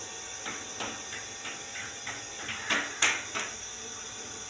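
Hands slapping a round of paratha dough back and forth between the palms to stretch it: a run of soft pats about three a second that grow louder, the loudest near three seconds in, over a steady faint hiss.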